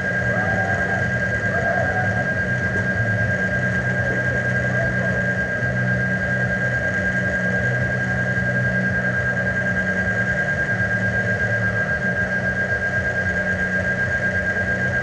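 Steady mechanical hum with a constant high-pitched whine over a low, slightly pulsing drone.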